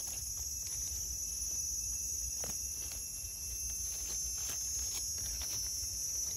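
Steady, high-pitched chorus of insects in the forest, with a few faint rustles and ticks of leaf litter as a bolete mushroom is pulled up by hand.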